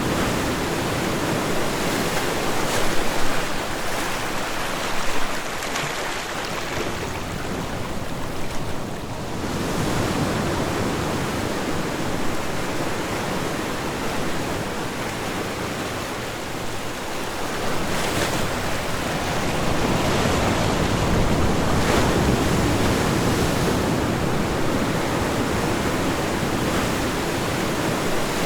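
Ocean waves breaking and washing on a shore, a continuous rushing that swells and eases every several seconds, with occasional sharper splashes.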